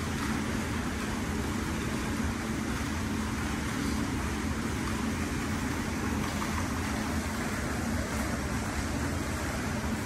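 Steady outdoor rushing noise with a low rumble and a constant low hum underneath, unchanging throughout.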